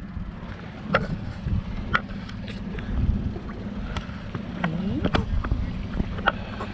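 Steady low rumble of a boat's engine running, with several sharp knocks over it.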